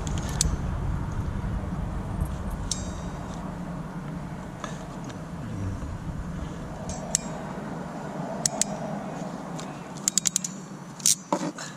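Small metallic clicks and clinks of a hand wire crimper being handled and squeezed onto a terminal connector on a stripped wire, with a quick run of clicks near the end.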